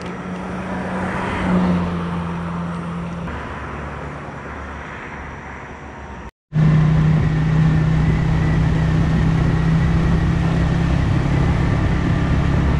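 Running motor vehicle: a steady engine hum with road noise. It breaks off briefly about six seconds in and comes back louder.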